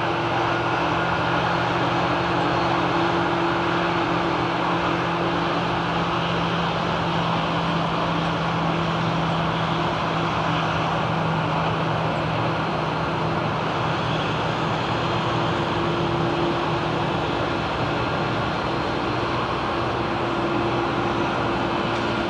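Boeing 787 Dreamliner's jet engines running steadily, a rushing roar with a few steady whining tones; one of the tones fades for a few seconds midway and comes back.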